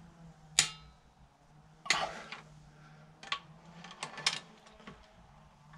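Wrench and socket clinking on cylinder head bolts: about half a dozen sharp metallic knocks, the first and loudest ringing briefly, over a faint steady low hum.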